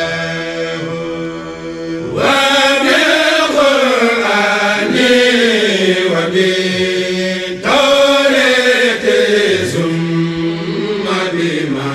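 A Senegalese Mouride kourel, a group of chanters, sings an Arabic devotional khassida in unison without instruments, in long melodic phrases over a steady held low note. A new phrase starts about two seconds in and another near eight seconds.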